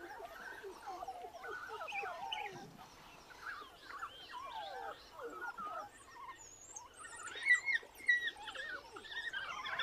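African wild dogs at their den twittering and squeaking: many short, high, wavering calls in quick succession, growing busier and louder near the end.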